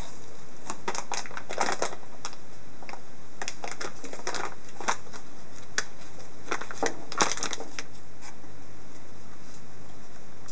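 Plastic food bags crinkling and rustling in irregular bursts of sharp crackles as a ferret noses and digs into them.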